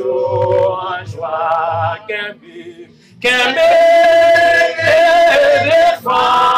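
A man singing in phrases, his voice wavering with vibrato, with short breaks between lines; a little past the middle he holds one long note for nearly three seconds.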